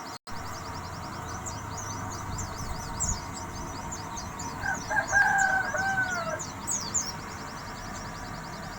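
Young wild-caught white-eye (pleci) twittering in a fast run of thin, high-pitched chirps: the rapid chatter ('ngeriwik') of a young trainee bird beginning to sing. About halfway through, a rooster crows in the background once, for about a second and a half.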